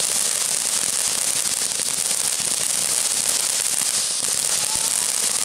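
Ground fountain firework spraying sparks: a steady hiss with dense fine crackling, unbroken throughout.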